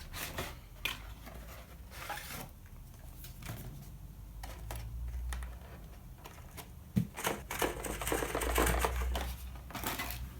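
Packaging being handled and opened: scattered clicks and crinkling rustles, busiest about eight seconds in.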